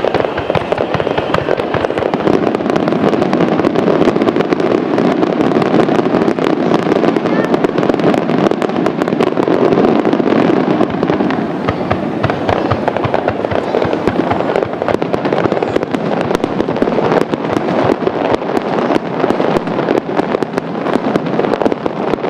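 Fireworks display: many shells bursting in quick succession, a continuous barrage of bangs with dense crackling and no pause.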